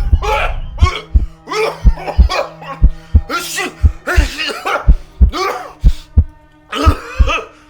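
A man coughing in a long run of loud fits over background music with a steady beat and a sustained low tone.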